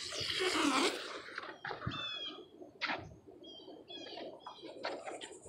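A small bird chirping short, high, repeated notes in two brief bouts, about two and four seconds in. A burst of rustling noise fills the first second, and a few faint knocks are scattered through the rest.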